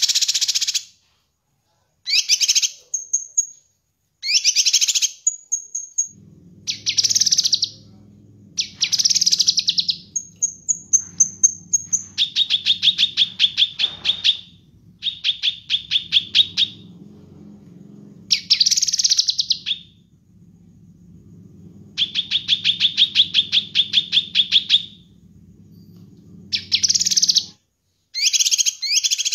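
A caged cucak kinoi, a green leafbird, singing hard in separate phrases. It mixes loud chattering bursts, fast runs of repeated notes at about five or six a second, and brief thin high whistles. Under the song a faint low hum starts about six seconds in and stops near the end.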